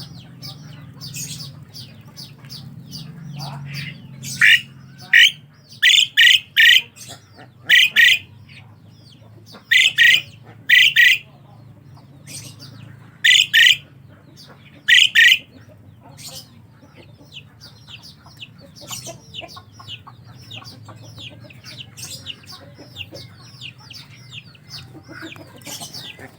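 Asian pied starling (jalak suren) calling: loud, short, harsh notes singly and in quick pairs or threes every second or two, over a steady chatter of fainter calls and a low hum.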